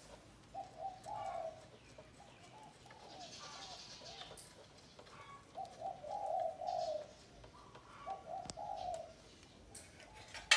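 A dove cooing, repeating a short phrase of several low coos every few seconds, with a few sharp clicks in between.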